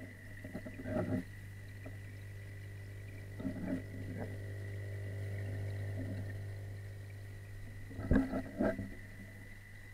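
Muffled underwater sound of a garden fish pond picked up through a submerged camera: a steady low hum with a faint high whine, broken by a few soft knocks and rumbles about a second in, around three and a half seconds, and louder near eight seconds.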